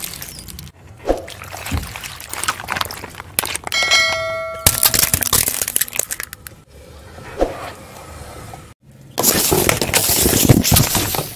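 Small objects crushed under a car tyre: a run of cracks, crunches and squelches, with a bell-like ding about four seconds in. Near the end a long, loud splatter as a liquid-filled object bursts and sprays.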